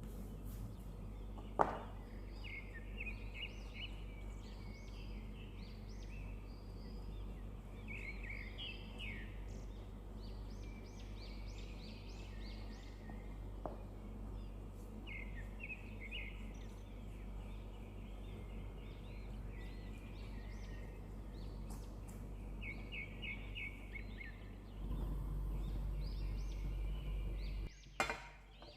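Small birds chirping in short, repeated calls over a steady low hum, with a single sharp knock about a second and a half in.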